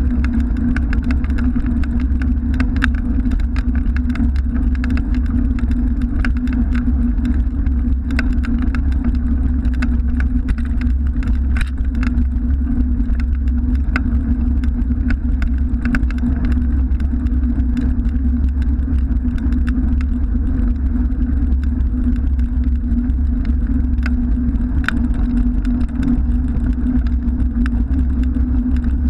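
Bicycle rolling over interlocking brick paving, heard through a camera mounted on the bike: a steady heavy rumble with a constant hum, sprinkled with many small clicks and rattles.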